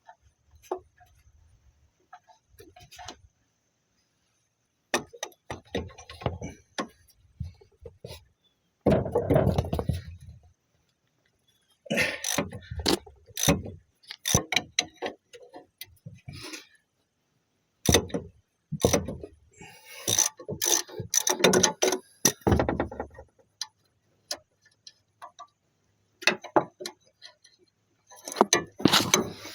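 Hand tools at work on a car: ratchet clicks and metal tools and parts clinking and knocking in irregular bursts, separated by short pauses.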